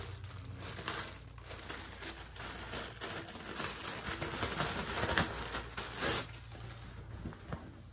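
Clear plastic poly bag crinkling and rustling in irregular bursts as it is handled and opened to take out a T-shirt, busiest from about three seconds in until about six seconds in.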